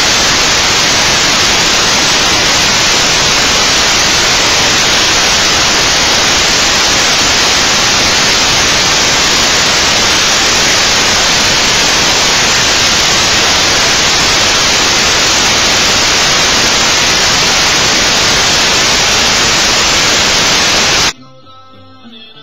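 Loud, steady static hiss, like white noise, with no pitch or rhythm; it cuts off abruptly about 21 seconds in.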